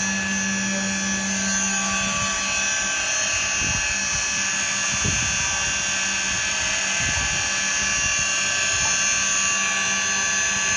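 CNC router running under test: a steady, high-pitched whine made of many tones, with a low hum that drops out about two seconds in.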